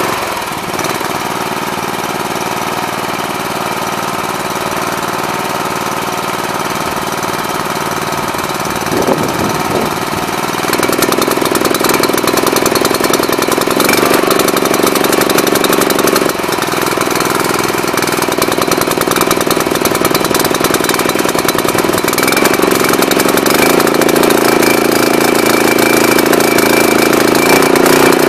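Honda GX340 11 hp single-cylinder four-stroke petrol engine running without pause. Its note rises and gets louder about ten seconds in, drops back briefly a few seconds later, then rises again.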